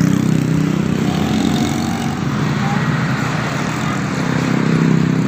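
Road traffic: a heavy vehicle's engine running steadily close by, a continuous low drone with no horn sounding.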